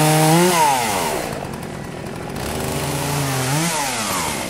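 Gas chainsaw revved twice: each time its engine note climbs and holds high, jumps briefly higher, then drops away as the throttle is let off.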